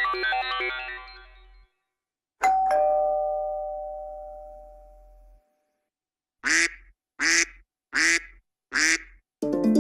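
A sequence of iPhone X ringtone and alert tones: a fast electronic ringtone pattern fades out in the first second and a half, then a single chime with two ringing pitches dies away over about three seconds, then four short tones sound evenly, just under a second apart. A plucked, harp-like tone begins right at the end.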